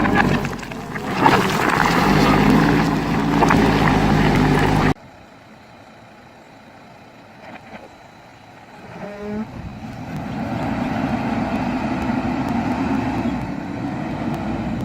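JCB backhoe loader's diesel engine running, loud for about five seconds and then cut off abruptly, followed by a quieter stretch and the engine sound building back up about nine seconds in.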